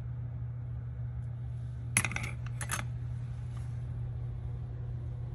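Kawasaki Zephyr 1100 clutch plates, steel and friction, clinking against each other and a metal tray as they are moved: two short, bright metallic clinks about two seconds in, over a steady low hum.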